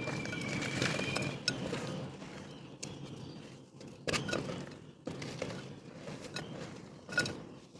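Dried mud shapes being crushed and crumbled: a gritty crunching with several sharp cracks as pieces snap.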